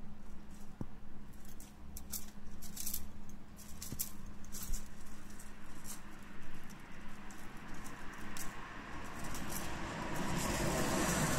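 Husky puppy biting and tugging at the stiff bristles of a shoe brush: scattered scratchy clicks and rustles, which build into a louder, continuous rustle near the end.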